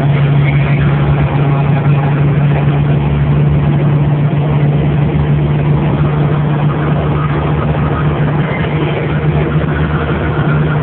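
1998 Jeep Cherokee engine heard from inside the cab, held at high revs around 4,500 rpm and running at a steady drone with road and wind noise. The Jeep is topped out at about 90 mph in fourth gear rather than overdrive, on freshly fitted Ford 24 lb injectors.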